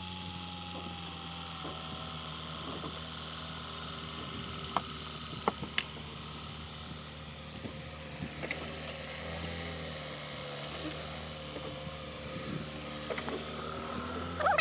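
2010 Volkswagen Passat's 2.0T turbocharged four-cylinder engine running steadily at idle, with a few light clicks and ticks over it.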